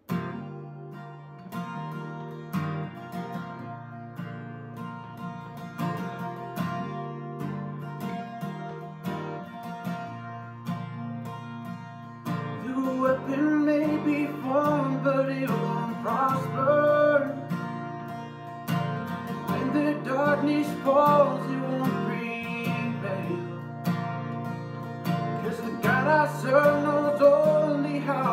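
Acoustic guitar strumming chords, joined about halfway through by a man singing a worship song over it, and the music grows louder when the voice comes in.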